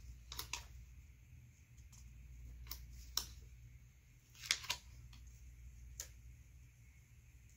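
Fingers handling paper stickers and washi tape on a planner page: a scattered run of small clicks and taps as pieces are peeled and pressed down, the loudest about four and a half seconds in.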